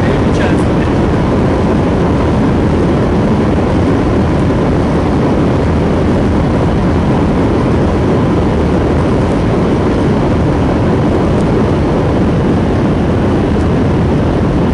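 Steady, loud in-flight aircraft noise: engines and rushing air heard from aboard the aircraft, unbroken throughout, with a faint steady tone underneath.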